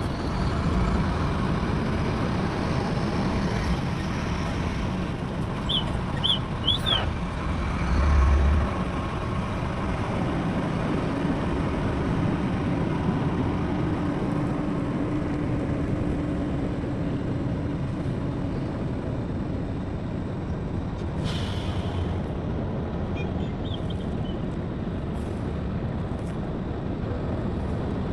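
Heavy diesel machinery running steadily, with an engine note that rises and falls a little. There are a few short high squeaks about six to seven seconds in and a brief low thump about eight seconds in.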